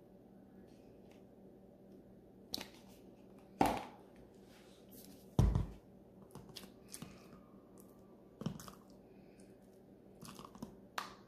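Scattered soft clicks and knocks of a metal spoon and containers as mayonnaise and crema are spooned onto a tuna salad in a glass baking dish. The two loudest knocks come about three and a half and five and a half seconds in.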